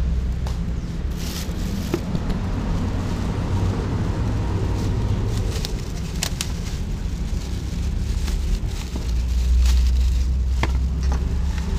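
A steady low rumble that swells near the end, with scattered crackles and clicks from a plastic bag of ice being handled.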